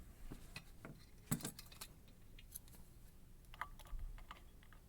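Scattered light metal clicks and clinks of lock picks and a small Abus 55 series brass padlock being handled, with a sharper click about a second in.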